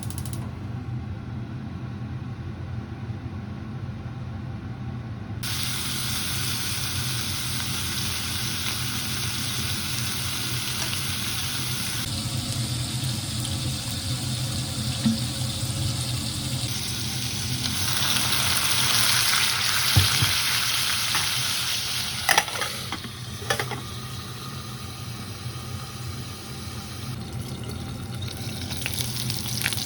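Food sizzling as it fries in a pan, the hiss growing stronger a few seconds in and swelling about two-thirds of the way through. A few sharp clicks sound over it.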